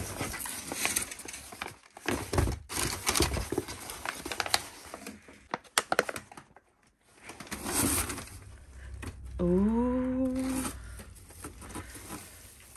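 Rustling and crinkling of kraft packing paper and plastic pouches being handled while unpacking a cardboard box, with small clicks and knocks. Partway through, a person gives a brief rising exclamation that holds for about a second.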